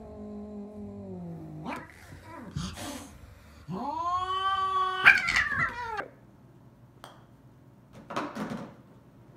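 Cats yowling in a standoff: a long, low yowl that slowly falls in pitch, then a second drawn-out yowl about four seconds in that breaks into a harsh, rough cry. After that it goes much quieter, with a brief scuffing noise near the end.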